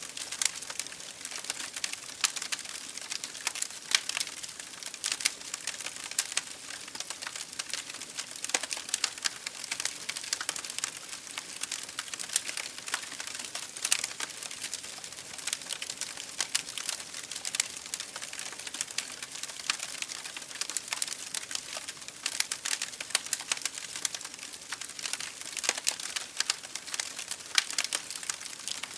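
Wood fire burning in an open fireplace: a steady hiss with dense, continuous crackling and now and then a sharper pop.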